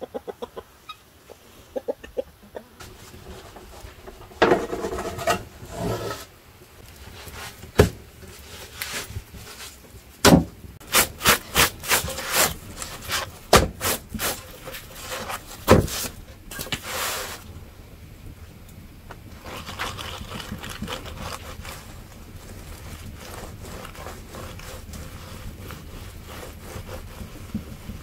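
A run of sharp, loud knocks in the middle, then soft, steady rubbing: a lump of butter being rubbed over a thin flatbread on a wooden board.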